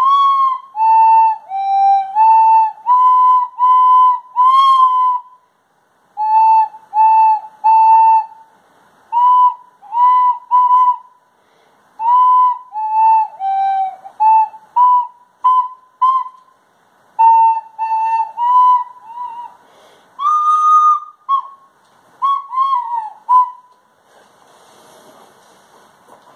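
Plastic recorder blown through the nose, playing a halting run of short notes in a narrow pitch range, grouped into phrases with brief pauses. It stops a couple of seconds before the end.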